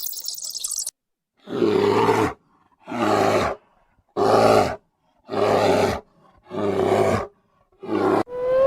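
A large animal's deep, rough call, given six times in a row about a second apart.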